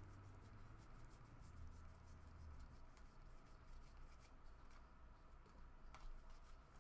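Faint handling of trading cards: soft slides and light clicks as cards are flipped through one by one, over a low steady hum.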